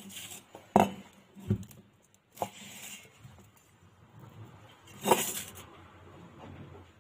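Stainless steel mixing bowl knocked and clinked about four times as ingredients are put into it by hand, the loudest knock about five seconds in.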